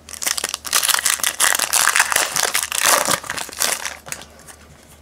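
Foil wrapper of a trading-card pack crinkling as it is torn open, a dense crackling for nearly four seconds that then dies down.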